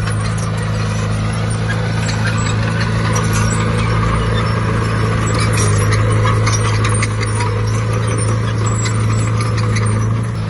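Heavy earthmoving machine's diesel engine running steadily, with scattered metallic clanking, busiest around the middle.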